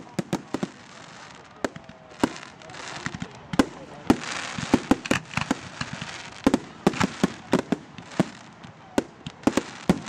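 Aerial firework shells bursting in a display, a rapid irregular series of sharp bangs, with a crackling hiss in the middle.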